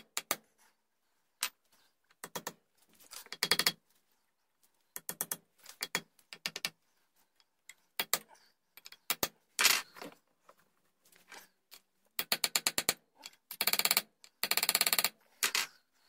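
A small hammer striking a round punch against the steel barrel at the brass front sight's base. The punch is peening the edges of the V-notch to close the groove and lock the sight in place. The blows come in runs of rapid taps with short pauses between, and the densest runs come near the end.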